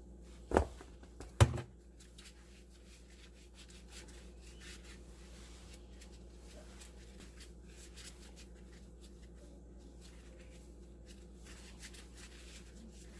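Two sharp knocks a little under a second apart, then faint rubbing and light handling clicks from work on the garbage disposal installation, over a steady low hum.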